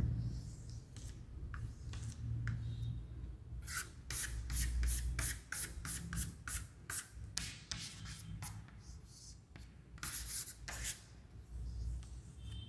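Chalk scratching on a chalkboard in shading strokes: a run of quick short strokes, about three a second, from about four seconds in, then a couple of longer rubs near the end.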